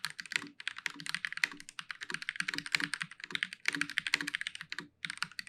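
Fast typing on a mechanical keyboard with linear red switches: a quick, uneven run of key clacks, with a brief pause about five seconds in.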